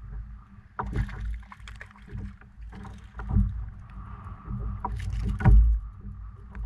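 Irregular clicks, knocks and a few heavier thumps from handling a freshly caught trout and fishing gear in a kayak, over a steady low rumble.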